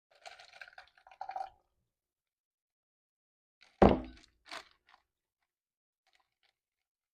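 Plastic sandwich bag rustling and crinkling briefly, then a heavy thud about four seconds in, followed by a lighter knock and a few faint ticks.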